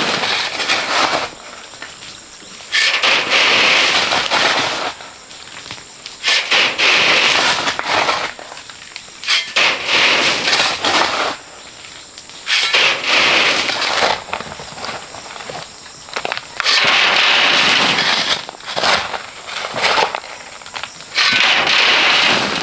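Repeated gritty scraping of sand and gravel worked with a shovel, each stroke lasting a second or two and coming about every three to four seconds.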